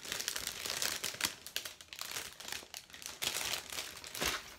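Thin plastic bread bag crinkling and crackling as it is handled, with a louder crinkle near the end.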